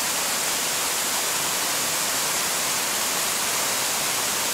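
Steady, even rush of a waterfall pouring into a rock pool.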